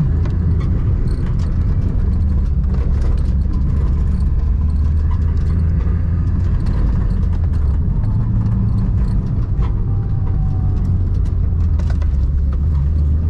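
A vehicle engine and road and wind noise at track speed during a lap: a loud, steady low drone that shifts in pitch now and then as the speed changes.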